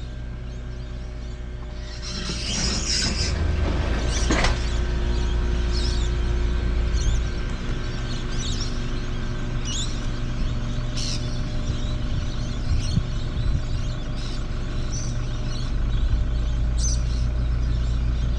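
An engine idling steadily with a low hum that grows louder about two seconds in, while birds chirp now and then.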